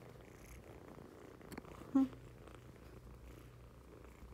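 Kitten purring close to the microphone, a steady low rumble, with one brief pitched squeak about halfway through.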